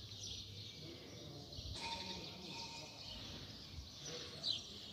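Small birds chirping over a faint outdoor background noise, with a short falling chirp near the end.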